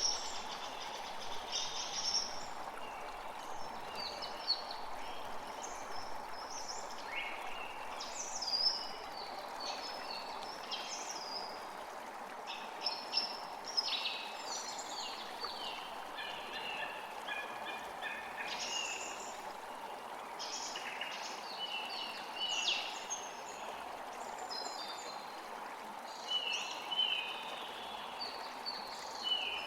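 Many birds chirping and calling over one another, short high calls scattered throughout, over a steady rushing background noise.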